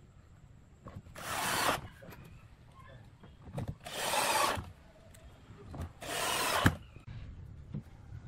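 Power drill driving wood screws into a pine disc: three short whirring bursts about two and a half seconds apart, the last ending in a sharp click.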